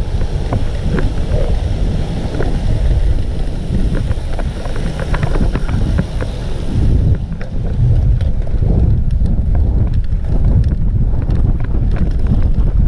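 Wind buffeting the microphone of a camera on a road bike while riding, a heavy low rumble with scattered small clicks and rattles from the bike. A higher hiss fades out about seven seconds in.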